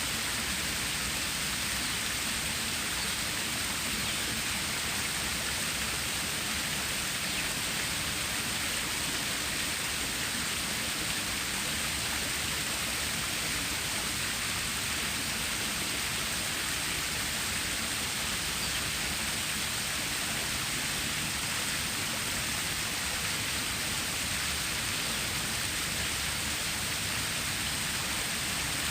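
Water stream flowing steadily, an even, continuous hiss of running water with no breaks or changes.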